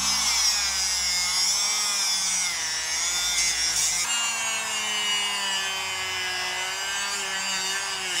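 Small grinder with a cut-off disc cutting through the steel ball cage of a constant-velocity joint: a loud, steady whine with a harsh hiss of metal grinding, its pitch wavering slightly. The tone jumps abruptly about four seconds in.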